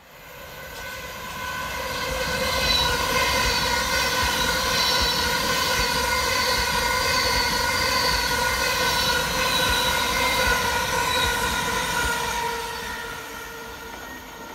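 Thameslink Class 700 electric multiple unit passing along the platform. It builds over the first couple of seconds, with wheel-and-rail rumble and a steady whine of several tones, then fades away in the last two seconds.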